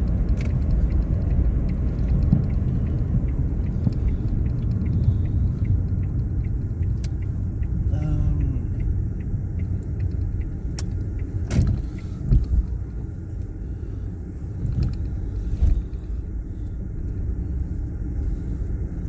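Inside a Mk7 Ford Fiesta's cabin, engine and road rumble as the car is driven slowly, with a quick, even ticking through the first several seconds and a few sharp knocks around the middle.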